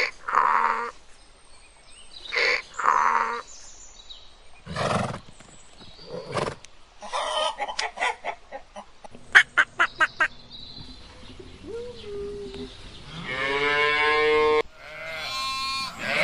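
A string of animal calls added to the soundtrack, separate cries a second or two apart. They include a low roar about five seconds in and one long pitched call near the end.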